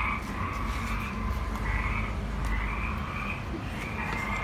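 Frogs croaking in a steady chorus, the calls repeating about every half second to second over a low rumble.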